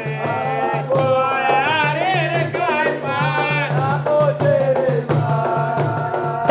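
A group of men singing together to the beat of hand-held frame drums and hand clapping.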